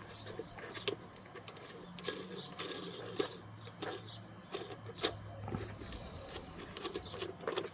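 Irregular small clicks and scrapes of a threaded lock ring being screwed onto a USB charger port's body behind the dash panel, with a low steady hum that stops about six seconds in.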